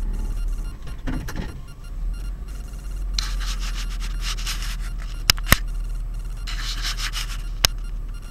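Low steady rumble of a car idling, heard inside the cabin, with two stretches of rubbing, scraping noise from within the car and three sharp clicks in the second half.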